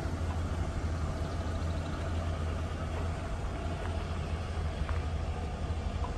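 1986 Ford F-150's 5.0-litre V8 idling steadily with a low, even rumble.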